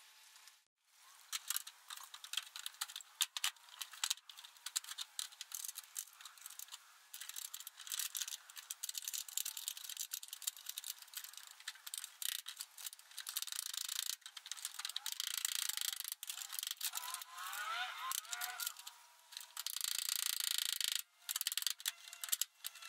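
Metal clanking and rattling of a fifth-wheel hitch being handled and set into its rails in a pickup bed, a dense run of irregular knocks and clicks. A short squeaky scrape about two-thirds of the way in.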